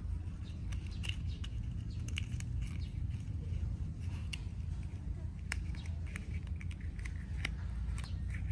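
Paper being handled and folded by hand: irregular small crinkles and clicks over a steady low rumble.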